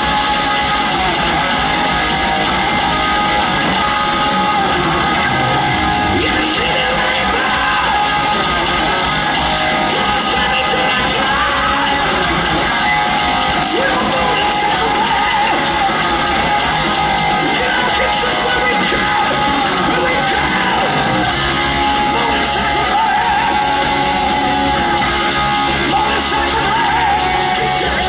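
Live heavy metal band playing, with electric guitars, drums and a male lead vocal. Recorded from the audience, it sounds loud and reverberant in a large hall.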